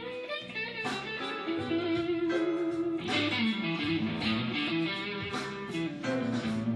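Fender Stratocaster electric guitar playing a blues instrumental fill: a run of single-note licks over recurring low bass notes.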